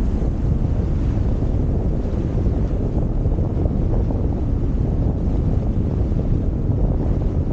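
Steady wind buffeting the microphone, a low rushing noise with no distinct events.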